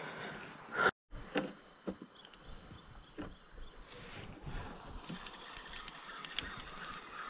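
Spinning reel and rod being handled and wound while a giant freshwater prawn is reeled in: scattered small clicks and knocks over a low steady rush, with a brief dropout about a second in.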